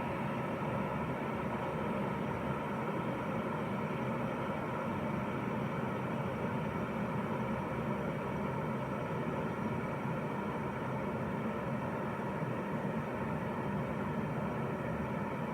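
Electric kettle heating water close to the boil: a steady rushing noise.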